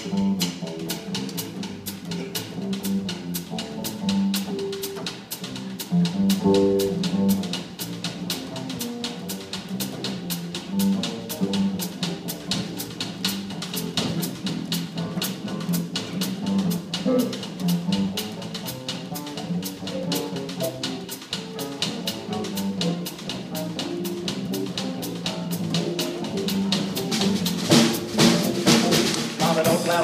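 Upright double bass solo, plucked in a run of low notes, with a drum kit keeping time underneath in light, even ticks.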